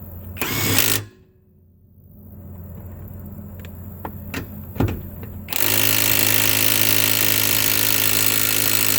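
Cordless 1/2-inch impact wrench hammering steadily on a car lug nut to break it loose, starting a little past halfway through. Before that comes a brief burst from the wrench, then a few clicks and a clunk as the socket is fitted to the next nut.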